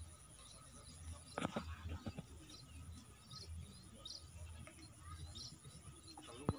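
Small birds chirping, short high chirps repeating every half second or so. Two sharp knocks cut in, one about a second and a half in and one near the end.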